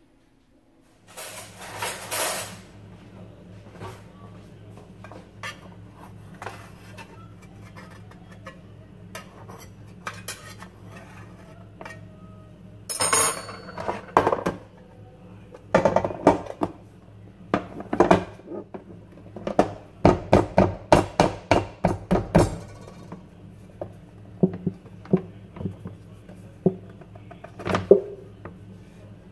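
Metal loaf pan clattering and knocking against a counter and a plastic cutting board as it is handled. About twenty seconds in there is a quick run of knocks as the upturned pan is tapped to release the baked loaf. A steady low hum runs underneath.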